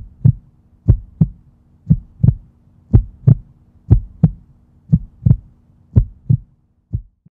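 Heartbeat sound effect: a slow double thump, lub-dub, about once a second, seven times over, over a faint steady low hum; the last beat is a single, weaker thump near the end.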